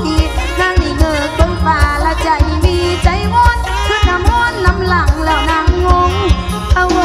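Live Isan mor lam band music with a steady drum beat and a woman singing the melody.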